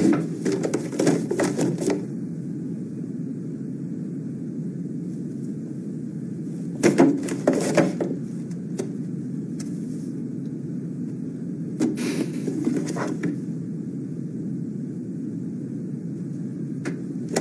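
Paper rustling as pages in a ring binder are handled and turned, in a few short bursts over a steady low room hum.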